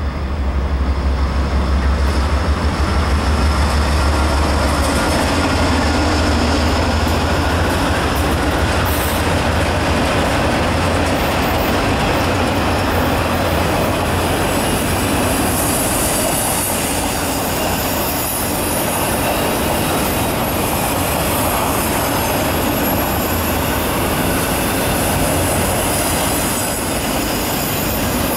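Norfolk Southern GE Dash 9-44CW diesel-electric locomotive passing close, its low engine rumble strongest for the first several seconds. After that, the freight cars roll by with steady wheel-on-rail noise and clatter, and a faint wheel squeal.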